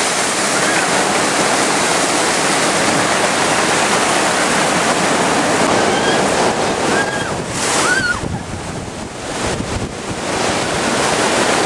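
Steady rushing of water flowing down a concrete waterslide channel, mixed with wind buffeting the microphone. It dips a little after about eight seconds, and a few faint high calls come through just before.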